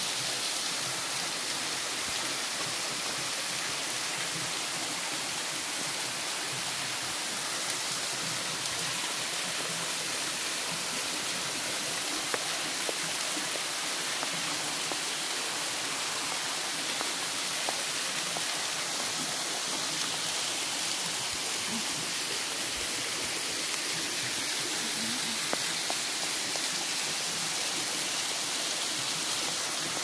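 Waterfall cascading down a rock face and splashing into a pool: a steady rush of falling water.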